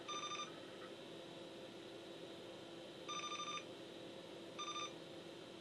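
Bench multimeter's continuity beeper giving three short beeps: one at the start, one about three seconds in, and a shorter one about a second and a half later. Each beep signals continuity to ground as the probe touches a capacitor on the water-damaged phone board.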